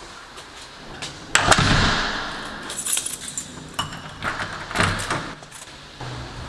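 An apartment door shuts with a loud knock about a second and a half in. A bunch of keys then jangles and clicks in the lock as the door is locked.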